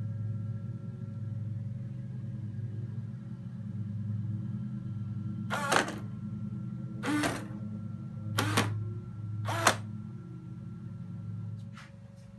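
ESU sound decoder in an LGB model of the RhB Ge 4/4 III electric locomotive, playing its standing-locomotive sound through the model's small loudspeaker: a steady low electric hum with faint steady whine tones. About halfway through come four short, sharp bursts, roughly a second apart.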